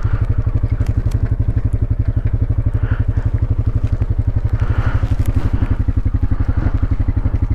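ATV engine idling, an even, rapid putter that holds steady throughout.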